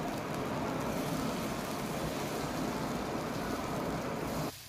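Semolina cheela batter sizzling steadily in oil on a hot tawa, with a low hum underneath; it cuts off abruptly about four and a half seconds in.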